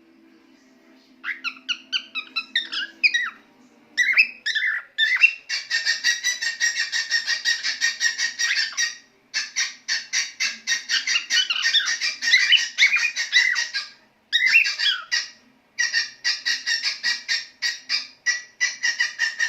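Male cockatiel singing. It begins about a second in with a few whistled, bending phrases, then goes into long runs of rapid, repeated chirping notes, several a second, broken by short pauses.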